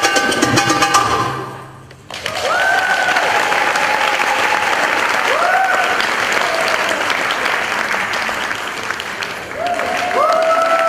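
Percussive drum-solo music ends about a second and a half in. Then an audience applauds and cheers, with several high whoops rising over the clapping.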